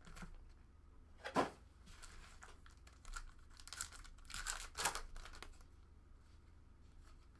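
Foil wrapper of a trading card pack being torn open and crinkled, in a few short rasping rips with the loudest about a second and a half in, then fainter rustling.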